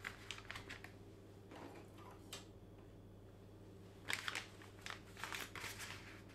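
Crumpled brown packing paper crinkling and a plastic stencil shifting on it as hands position the stencil over photographic paper. The rustles come in scattered clusters, busiest about four seconds in, over a faint low steady hum.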